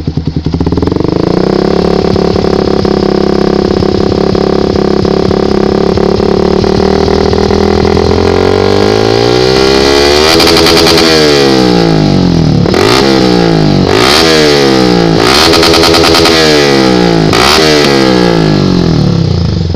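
Yamaha YZF-R15's single-cylinder four-stroke engine through an Akrapovic GP Lorenzo slip-on exhaust, stationary on a paddock stand. It comes up to a steady raised rpm about a second in and holds it, then in the second half it is blipped up and down five or six times before dropping back near the end.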